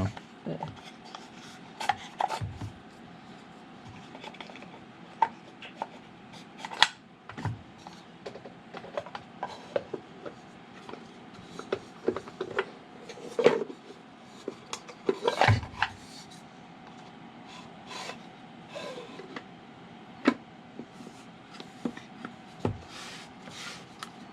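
Wooden puzzle box being handled and its sliding panels worked back into place: wood rubbing and scraping on wood, with irregular clicks and knocks as the parts shift and bump together.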